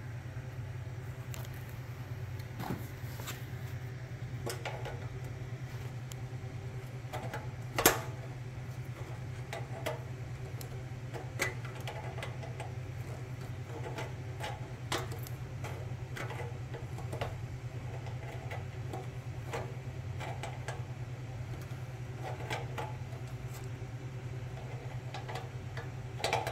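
Irregular small metal clicks and taps of a wrench working nuts and lock washers onto a fan's mounting bolts, with one louder clack about eight seconds in, over a steady low hum.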